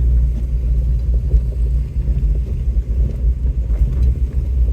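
Off-road vehicle's engine running with a steady low rumble as it drives along a rough dirt trail.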